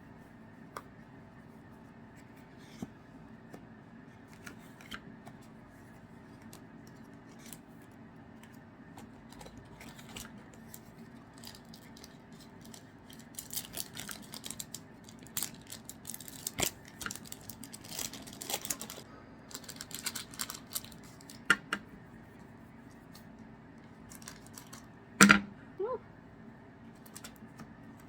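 Trading cards and their foil pack wrappers being handled: scattered light clicks, snaps and rustles, with one louder knock near the end.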